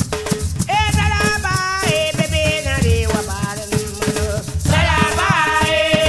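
Background music with a steady bass beat and shaker-like percussion. A melody that slides between notes comes in about a second in and again near the end.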